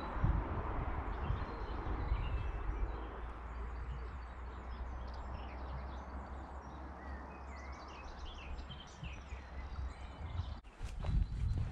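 Small birds chirping and trilling in the countryside, over a steady low rumble of wind on the microphone. Near the end come a run of sharp footsteps.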